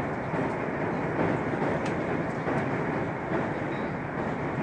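Kintetsu Hinotori limited express running at speed over a steel truss bridge, heard inside the carriage: a steady rumble of wheels and car body with a few faint clicks.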